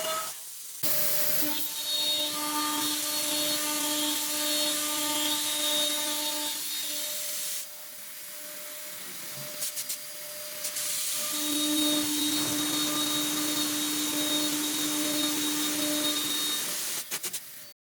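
CNC 5-axis wood lathe running and cutting wood: a steady high hiss of cutting over a steady motor whine, changing abruptly between shots.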